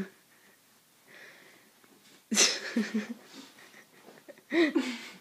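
A young woman's breathy vocal outbursts, not words: a sudden loud one about two seconds in, and a shorter one near the end.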